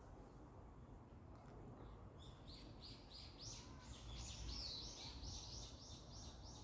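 Faint bird song: a long run of short, high chirping notes repeated about three times a second, starting about two seconds in, over a low background rumble.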